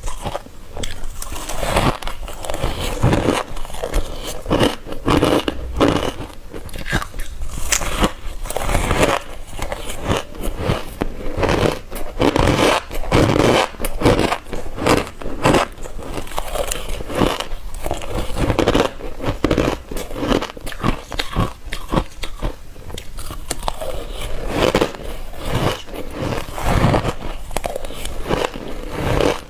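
Ice being bitten and crunched close to the microphone, bite after bite in quick succession, each a sharp crunch.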